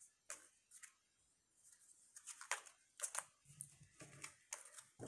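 Lenormand cards being gathered and handled by hand: a string of faint, short card slides and taps.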